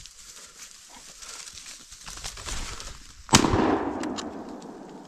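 A single shotgun shot about three seconds in, fired at a flushing woodcock, with a trailing echo. A rustle of brush builds for a second or two before it.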